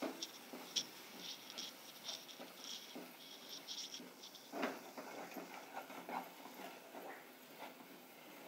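Wooden spatula stirring and scraping a thick spice paste with roasted gram flour in oil in a nonstick saucepan: faint soft scratching with light crackling, and a single knock about halfway through.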